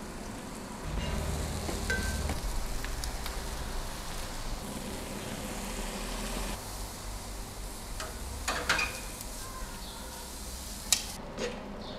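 Food sizzling as it fries in a pan and on a grill, a steady hiss with a few sharp clicks about two-thirds of the way in and again near the end.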